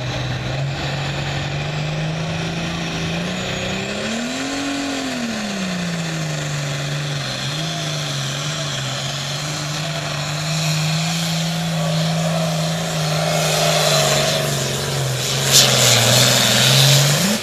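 Diesel super farm pulling tractor engine running hard under load as it drags the weight sled. Its pitch rises and falls once about four to five seconds in, and the sound grows louder toward the end.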